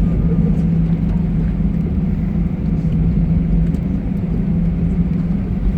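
Steady rumble inside an airliner cabin on the ground just after landing, engine and rolling noise together, with a constant low hum.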